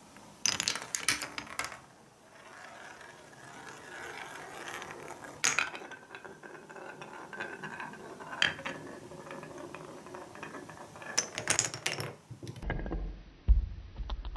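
Glass marble running through a wooden Cuboro marble run: a cluster of sharp wooden clacks as it drops through the blocks, then a steady rolling rumble along wooden track with single knocks now and then, and another quick cluster of clacks near the end followed by a low rumble.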